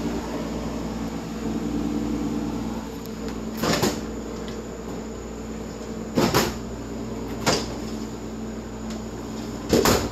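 Stainless steel drawers of a refrigerated sandwich prep cooler being pulled open and pushed shut, giving four sharp knocks a second or two apart. A steady mechanical hum runs underneath.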